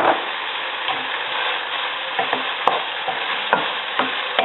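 Ground pork sizzling in hot oil in a pan, with a utensil scraping and stirring it every second or so.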